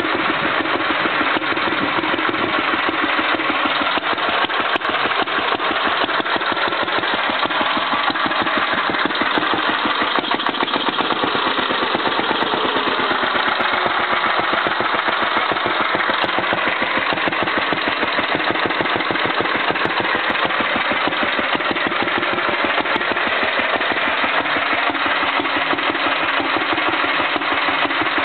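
Petter A1 single-cylinder petrol stationary engine running steadily with a rapid, even firing beat. It is freshly restored and running well.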